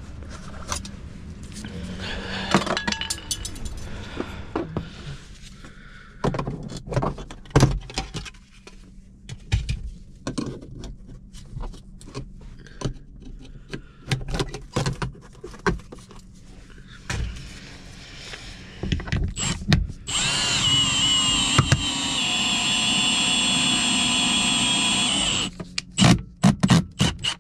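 Scattered clicks and knocks from parts and tools being handled. About twenty seconds in, a power tool's motor runs with a steady high-pitched whine for about five seconds, then stops, followed by more knocks.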